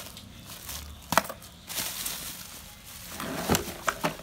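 Bubble wrap and plastic packaging crinkling as it is handled, with a few sharp clicks, one about a second in and two more near the end.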